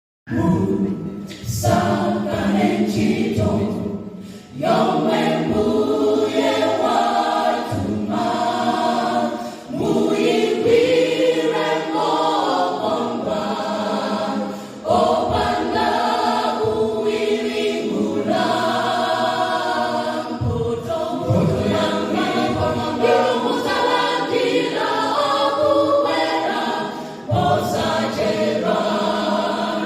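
Church choir singing a gospel song in several voice parts, phrase by phrase with short breaks between phrases.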